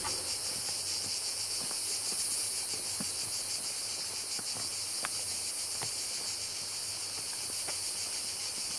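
Chorus of cicadas shrilling steadily, a dense high-pitched buzz with a fine rapid pulse, with a few faint ticks beneath it.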